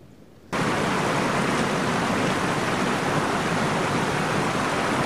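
Steady rush of a fast mountain creek, starting abruptly about half a second in.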